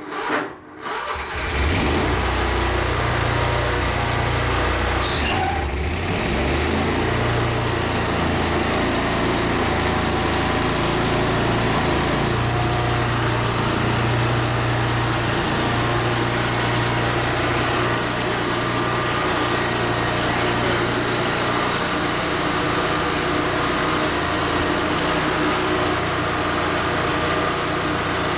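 An engine cranks and catches in the first second or two, then runs steadily with an even low hum.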